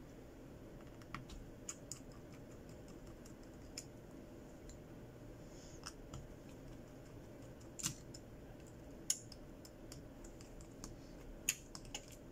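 Scattered small clicks and ticks of a precision screwdriver working the tiny screws in a Redmi Note 8's back frame, with a few sharper taps about eight, nine and eleven and a half seconds in.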